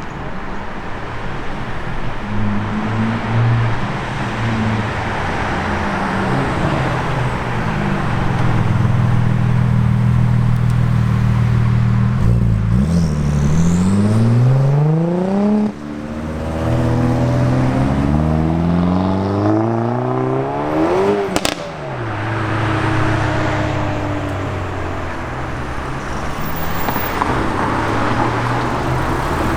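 Hyundai i30N's turbocharged four-cylinder engine and exhaust, running steadily and then accelerating hard: the pitch rises, breaks at a gear change and rises again, ending in one sharp exhaust crack. It then settles back to a steady run.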